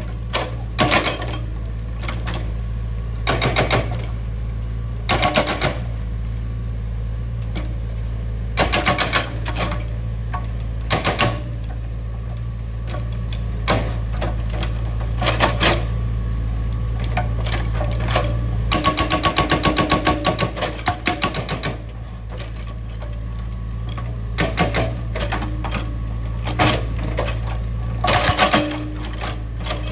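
Excavator engine running with a steady low hum, broken by repeated short bursts of rapid clattering, the longest lasting a few seconds a little after the middle.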